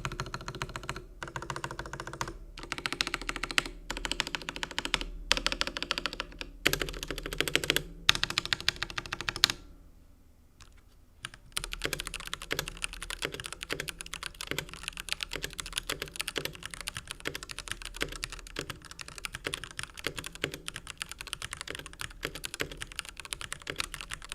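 Typing test on a SunSonny N-J9 Pro full-size mechanical keyboard with Jixian red linear switches in a steel plate with no dampening foam: rapid key clacks in bursts, a short pause about ten seconds in, then steady continuous typing.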